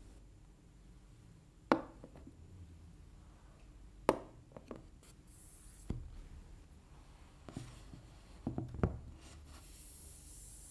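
Small plastic earbud charging cases and a phone in a hard plastic case set down on a tabletop: a handful of sharp clacks, spaced a second or two apart with a quick double near the end, with soft rubbing and sliding of hands on the surface between them.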